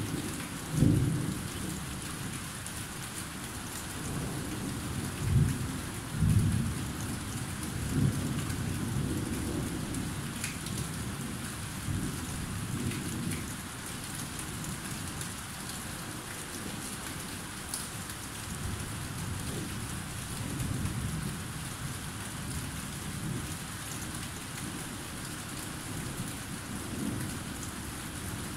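Thunderstorm: steady rain hissing, with several low rolls of thunder, the loudest about one, five, six and eight seconds in and weaker rumbles later on.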